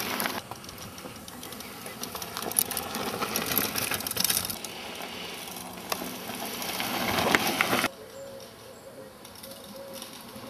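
Ellsworth Truth mountain bike riding over a rocky dirt trail: tyre noise on gravel with many clicks and rattles from the bike. The noise builds up, then cuts off suddenly about eight seconds in, leaving a quieter stretch.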